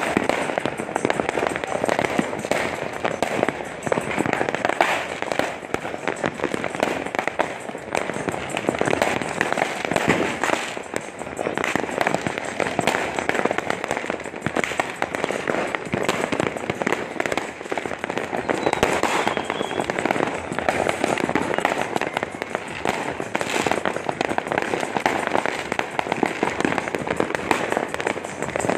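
Dense, continuous crackle of many firecrackers and fireworks going off at once, a steady barrage of overlapping cracks and pops without a pause.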